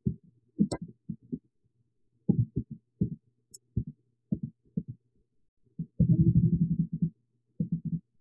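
Irregular dull knocks and rubbing on a headset earphone microphone, about a dozen short thumps with a longer rub about six seconds in, over a faint steady low hum.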